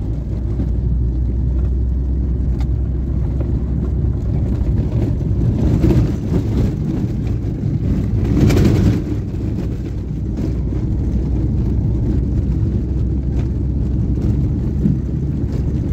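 Steady low rumble of a car driving, heard from inside the cabin, with a louder swell about eight and a half seconds in.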